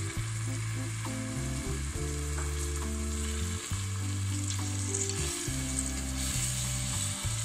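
Onion-tomato masala gravy with tamarind water sizzling in oil in a cooking pot, with a steady hiss; it is stirred near the end.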